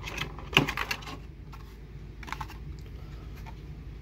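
Light clicks and taps of small items being handled while unpacking a collector's tin. There is a cluster of clicks in the first second and a couple more about halfway through.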